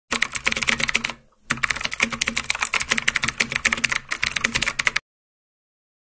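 Rapid computer-keyboard typing used as a sound effect: a fast run of key clicks with a short pause about a second in, cutting off suddenly about five seconds in.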